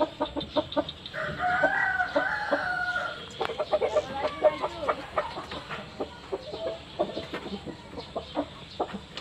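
Asil (Ganoi Aseel) rooster crowing once, a pitched call of about two seconds starting about a second in, followed by short clucks and scattered clicking taps.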